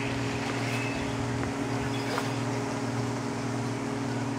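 A machine running with a steady low hum, holding one constant pitch with no change in speed.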